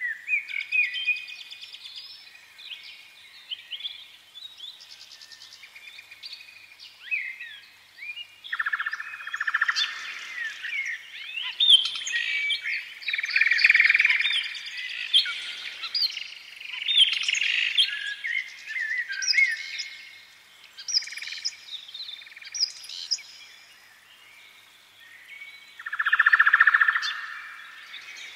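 Many small birds chirping and singing at once, short calls and quick rising and falling notes overlapping, busiest from about ten to eighteen seconds in and again near the end, with a thinner stretch in between.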